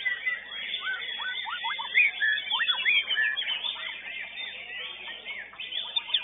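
Several white-rumped shamas (murai batu) singing at once, a tangle of quick rising whistles and chirps over one another, with a fast repeated trill starting near the end.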